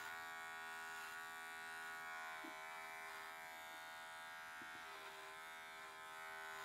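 Small handheld electric dog-grooming trimmer running with a steady, faint buzz as its blade clips through a dog's curly coat.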